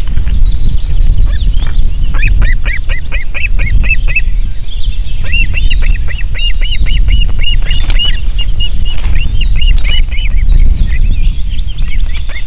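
Ospreys calling at the nest: fast runs of short, high chirping whistles, about four a second, one run about two seconds in and a longer one after a brief pause, over a loud, steady low rumble.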